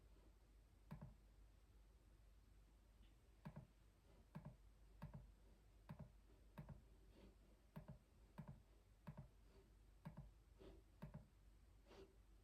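Slow, unhurried typing on a mechanical keyboard: single keystrokes with a soft low thock and a light click, about one or two a second, with a pause of about two seconds near the start.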